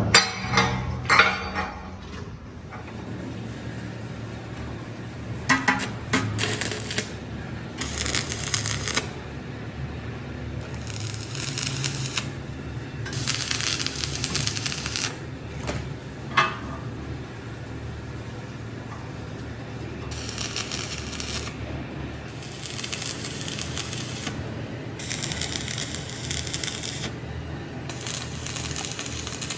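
Metalworking sounds: a few sharp metal clinks in the first couple of seconds, then a string of rough, scraping strokes of one to two seconds each, separated by short pauses, over a steady low machine hum.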